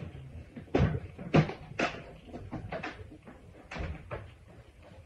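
Hard plastic parts of a Genesis Clean Master water-filtration vacuum knocking and clunking as the top section is fitted and pressed onto the canister: a series of sharp knocks, the loudest between one and two seconds in, with quieter handling in between.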